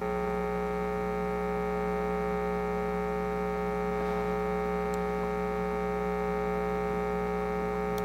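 Radio-frequency interference coming out of powered speakers while an HF amplifier transmits on 20 meters at about 400 watts. It is a steady, buzzy hum that starts abruptly as the transmission begins. It is the sign of the transmitter's RF getting into the speakers' audio.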